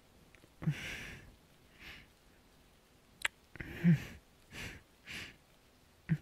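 Close-miked ASMR kissing sounds: a series of soft breaths and short hummed sighs, with a sharp lip smack about three seconds in.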